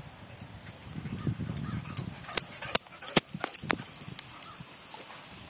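Footfalls on dry grass and dirt: a quick run of about eight sharp steps in the middle, about two to three a second.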